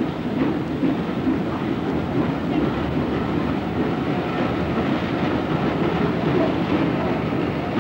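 Steam-hauled mail train running on the rails: a steady rumble with a clickety-clack rhythm, heard through an old 1930s film soundtrack.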